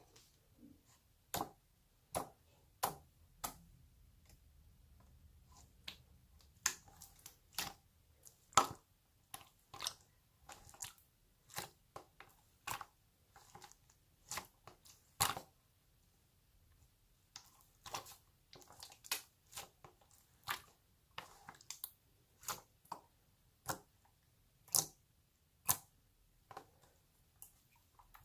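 Slime being handled: a run of sharp, wet clicks and pops, irregular, about one or two a second, some coming in quick clusters.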